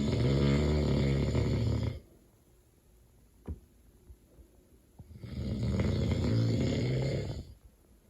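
A sleeping man snoring loudly: two long snores about five seconds apart, each lasting about two seconds, with a short click between them.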